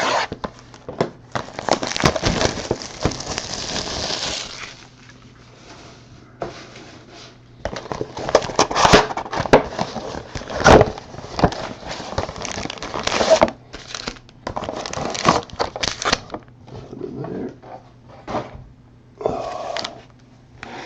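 Plastic wrapping on trading-card boxes and packs being torn open and crinkled by hand: irregular rustling and crackling, with a longer stretch of tearing about two seconds in. A faint steady low hum runs underneath.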